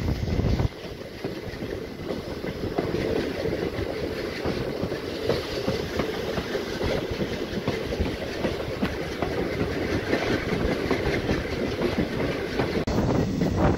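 Passenger coaches of an express train running over the track, heard from aboard: a steady rumble of wheels on rails with light irregular knocks. The sound drops abruptly in level a little under a second in.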